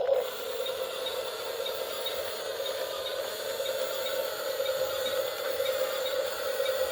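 A small motor running steadily: a constant hum with hiss over it and faint, evenly spaced ticking.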